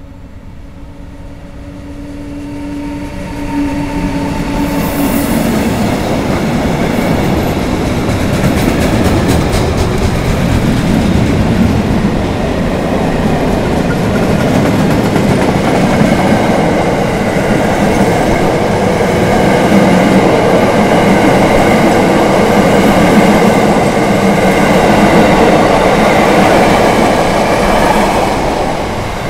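Siemens Taurus electric locomotive passing at speed with a long train of track-maintenance machines. It starts with a steady tone as the train approaches, rises over the first few seconds, and then becomes loud, steady rolling noise of the wagons' wheels on the rails as they go by.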